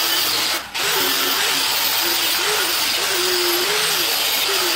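Hand-held power tool stripping old paint off the steel drift trike frame down to bare metal: a steady, loud grinding hiss over a motor whine that wavers up and down in pitch as it is pressed to the metal. It cuts out briefly under a second in.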